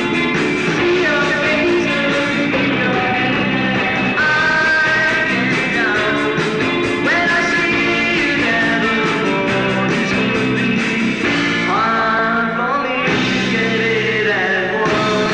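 Rock band playing live: electric bass and drums under a lead line that slides up in pitch a few times.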